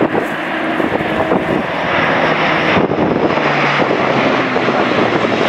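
Airbus A400M's four Europrop TP400 turboprop engines and propellers at display power as the transport passes low overhead: a loud, steady propeller drone that grows a little louder as it comes overhead.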